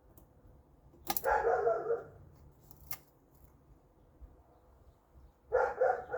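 A dog vocalizing twice, each call about a second long, with a single sharp click between them.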